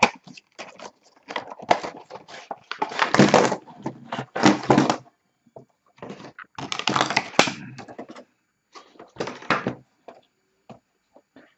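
Product packaging being opened and handled: irregular rustling, scraping and knocking in bursts, busiest in the first five seconds and again around six to eight seconds in, then sparser.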